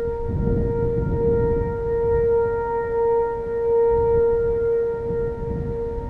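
Distant Whelen outdoor warning sirens pitched at 465 Hz, sounding a steady alert tone that swells and fades in loudness as they rotate. Low wind rumble on the microphone runs underneath.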